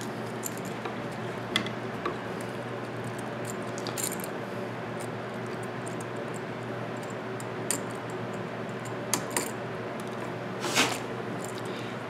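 Scattered small metallic clicks and taps as a screwdriver works the terminal screws of a 20 amp electrical receptacle and copper wire is handled, with one louder rattle near the end, over a steady low hum.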